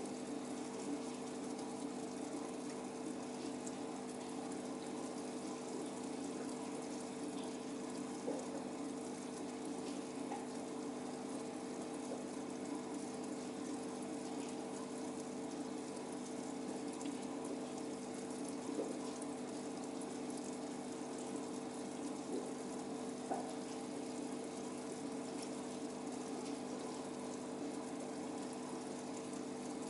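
Aquarium pump and filter running steadily: a constant hum over the sound of moving water, with a few faint ticks.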